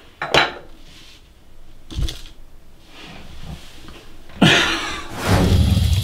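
Clinks and knocks of glass and ceramic on a porcelain toilet tank lid as objects are lifted off it, with a louder clatter about four and a half seconds in. Near the end, a steady rush of tap water running over the lid in a sink.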